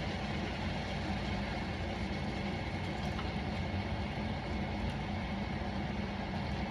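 Steady low hum with a faint hiss, unchanging throughout, with no distinct clicks or knocks.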